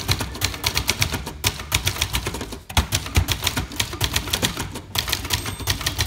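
A 1966 Montgomery Ward Signature 300 manual portable typewriter (a rebranded Brother JP-1) being typed on for a type test: a steady run of sharp key and typebar clacks, several a second, with brief pauses about two and a half and five seconds in.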